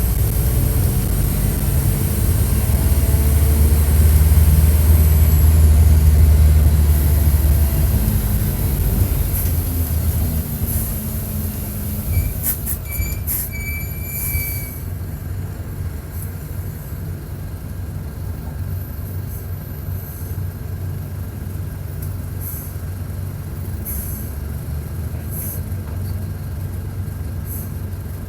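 Mercedes-Benz OF-1722 bus's diesel engine heard close up, running loud under load for about eight seconds, then dropping to a lower, quieter steady running as the bus eases off. A few brief high squeals and clicks come about halfway through.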